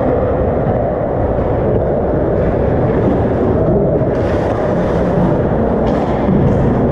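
Steady low rumble of indoor ice-rink background noise. About four seconds in and again near six seconds there are short hisses of skate blades scraping the ice.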